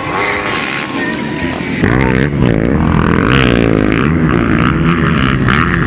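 Background music with a pulsing bass line that comes in about two seconds in. Over it, motocross bike engines rev up and down in rising and falling sweeps.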